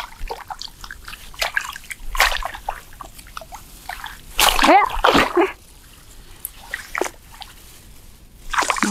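Water splashing and sloshing irregularly as hands grope underwater in a muddy bank for fish. The loudest splashes come about four and a half seconds in.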